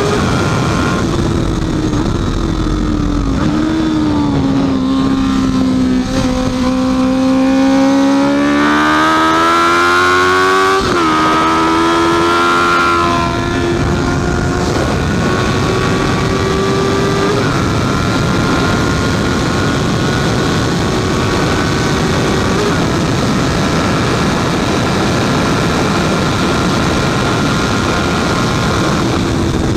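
Honda CB650F inline-four motorcycle engine running hard on a race track, over a steady rushing noise. The revs sag, then climb steeply to a peak about eleven seconds in, drop sharply at a gear change, and then hold at a high, fairly even pitch with small steps.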